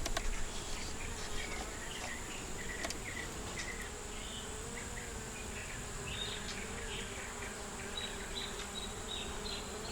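Honeybees buzzing around an opened hive: a steady hum that wavers slightly in pitch.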